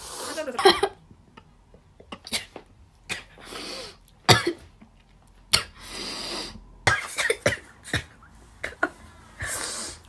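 A woman sneezing in rapid succession: a string of short, sharp sneezes with breathy in-breaths between some of them.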